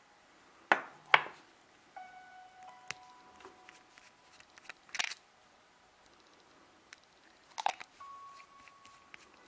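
Sharp plastic clicks and taps of a Pilot 78G fountain pen being handled: two close together about a second in, another near the middle and a pair late on, over faint background music.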